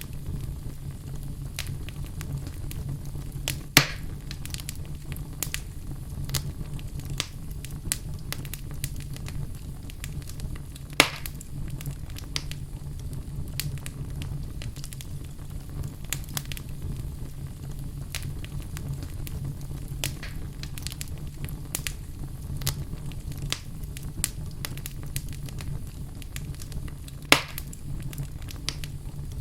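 Wood fire in a fireplace crackling, with irregular small snaps and three much louder pops: one about 4 s in, one about 11 s in and one near the end. A steady low rumble runs underneath.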